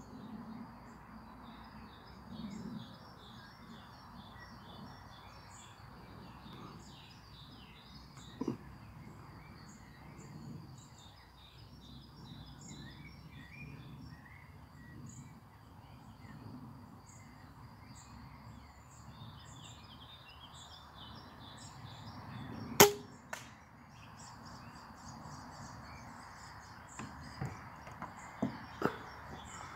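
An 80 lb crossbow pistol fires once with a single sharp snap about two-thirds of the way through. Half a second later comes a fainter knock as the bolt strikes a hardwood tree trunk. Birds and insects chirp steadily, and there are a few small clicks near the end.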